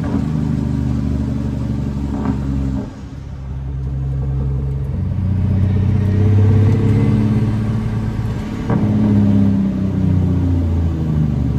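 Cat C13 diesel engine of a Kenworth W900 on the jake brake, heard from inside the cab: a deep, steady engine note that cuts off sharply about three seconds in, then builds back up and changes again about nine seconds in.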